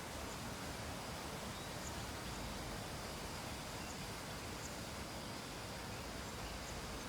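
Steady, even background hiss with no distinct events, and a few faint, irregular high ticks scattered through it.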